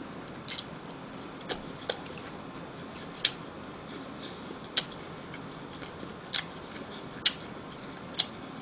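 Mouth sounds of someone chewing a pan-fried seafood patty (haemul donggeurangttaeng): short, sharp wet clicks and smacks every second or so over a faint steady hiss.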